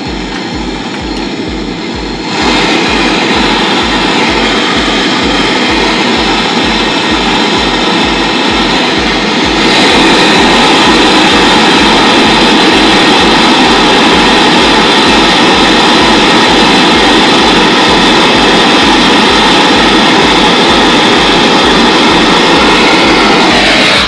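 Handheld gas brazing torch flame roaring steadily while the copper suction line is brazed onto the refrigerator compressor. It grows louder as the flame is turned up, about two seconds in and again near ten seconds, and stops when the flame is shut off at the end.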